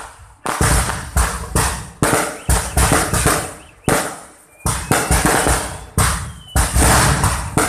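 Aerial fireworks display: a rapid string of loud shell bursts, about two or three bangs a second, each trailing off in an echo, with a faint rising whistle about halfway through.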